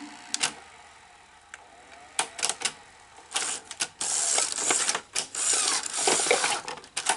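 Work noises on an open Sony SL-HF600 Betamax VCR: a run of sharp clicks and several short scraping or whirring spells, starting about two seconds in.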